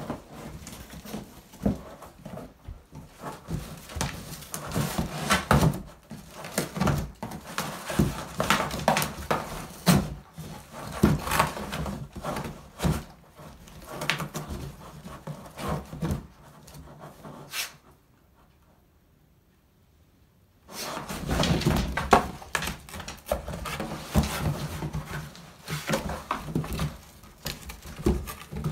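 Large black dog clawing and biting at a cardboard shipping box, scratching, knocking and tearing the cardboard in irregular bursts. The noise stops for a few seconds a little past the middle, then the tearing resumes.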